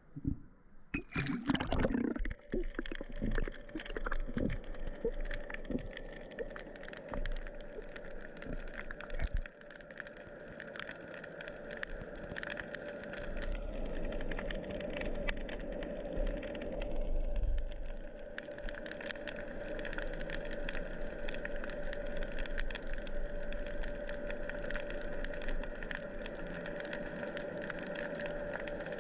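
Water splashing around a camera as it goes under in the first two seconds or so. Then underwater ambience: a steady hum with a dense crackle of faint clicks.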